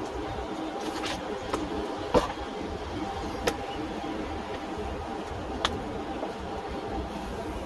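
A steady hum with four or five sharp clicks and knocks scattered through it, the loudest about two seconds in.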